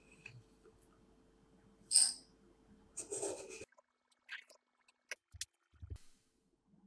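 A wooden spoon scooping instant coffee granules from a glass jar and tipping them into a glass beaker: a sharp clink about two seconds in, a short rustling scoop about a second later, then a few light ticks of spoon and granules against glass.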